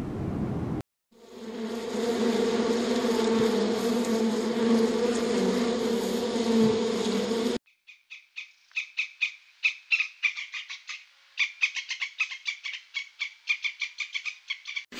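A loud steady buzzing drone for the first half, then it cuts off and a Eurasian red squirrel eats seeds from a hand, with rapid, irregular crunching clicks as it bites and chews.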